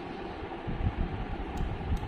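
Low, irregular rumbling handling noise, with one faint click about one and a half seconds in.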